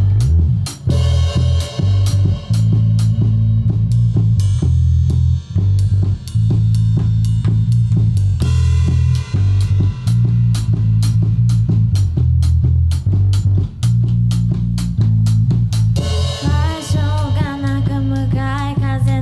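Live rock band playing an instrumental passage: a drum kit keeping a steady beat with bass drum and snare, electric bass and electric guitar. A sustained, wavering melody line comes back in near the end.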